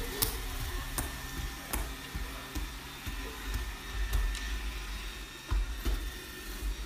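Robot vacuum cleaner running: a steady motor hum with a faint whine, and a few light clicks.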